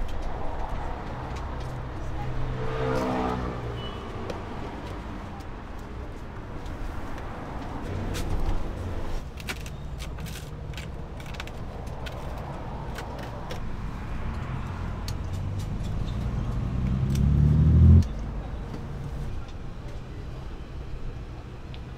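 Street traffic: passing vehicle engines, one rising in pitch as it accelerates over several seconds and then cutting off suddenly about three-quarters of the way through. Scattered light clicks in the middle.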